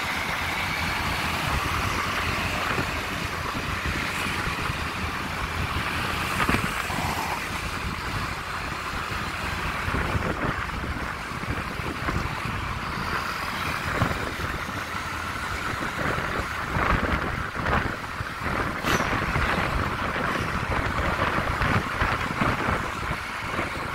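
Road traffic noise heard while riding through city traffic: motorbike and vehicle engines and tyres rumbling steadily, with wind buffeting the microphone.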